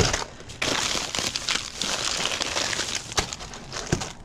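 Plastic trash bags and snack-packet wrappers crinkling and rustling as gloved hands rummage through them, with a few sharp knocks in between.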